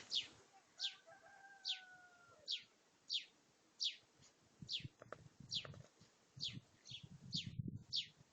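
A bird repeating one short, sharply falling high chirp about once every 0.8 seconds. About a second in, a faint rooster crow is held for about a second and a half. Low rumbling thumps come in the second half.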